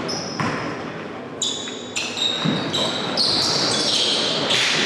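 Basketball game play on a hardwood court: a few sharp bounces and knocks of the ball, then rubber-soled sneakers squeaking on the wooden floor, the squeaks coming thick and fast in the second half as players scramble for a rebound.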